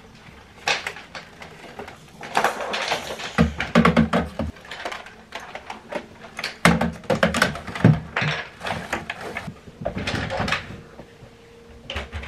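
Irregular knocks and clatter as a plastic guitar-shaped game controller with its strap is pushed onto a wardrobe shelf, the loudest knocks a little past three seconds in and around seven to eight seconds in, followed by the rustle and clicks of clothes and hangers being handled.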